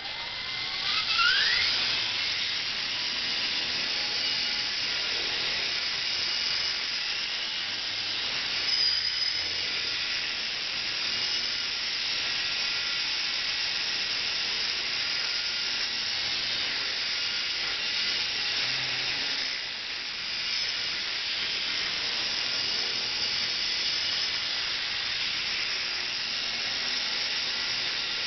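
Small fixed-pitch electric RC helicopter (EF Sabre) spooling up with a rising whine over the first couple of seconds, then flying with a steady high-pitched whine of motor, gears and rotor. The level dips briefly about twenty seconds in.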